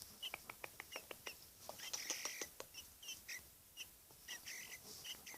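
Young Eurasian blackbird calling with repeated short, high chirps. A quick run of sharp taps or clicks fills the first second and a half.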